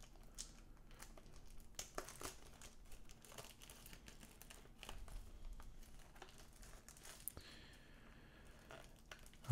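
Faint, irregular crinkling and crackling of plastic shrink wrap being torn and peeled off a cardboard trading-card box.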